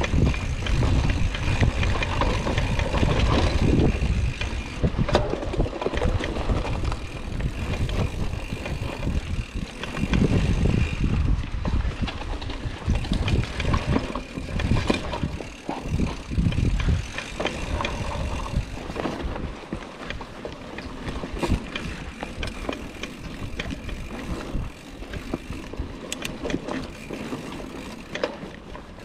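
Hardtail mountain bike ridden along a dirt trail: tyre rumble and wind buffeting the camera microphone, with rattles and clicks from the bike over rough ground, swelling in louder surges.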